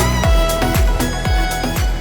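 Background music with a steady kick-drum beat, about two beats a second, over sustained pitched notes.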